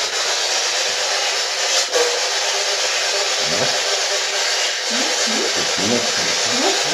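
Steady loud hiss of radio static from a PSB11 spirit box sweeping through stations, with a sharp click about two seconds in. Short voice-like snatches come through the static in the second half.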